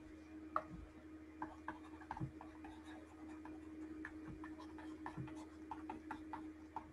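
Faint, irregular ticks and taps of a stylus tip on a tablet screen during handwriting, over a low steady electrical hum.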